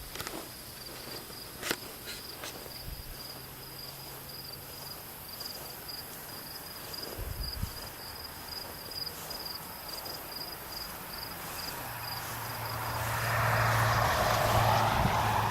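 Insect trilling with a steady, rapidly pulsing high note that fades out about twelve seconds in. A low hum and a rushing noise then swell up and become the loudest sound near the end.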